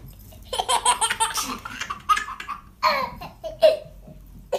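A baby laughing: one long stretch of laughter starting about half a second in, then three short laughs.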